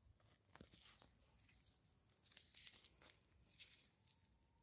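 Near silence, with a few faint rustles and clicks scattered through.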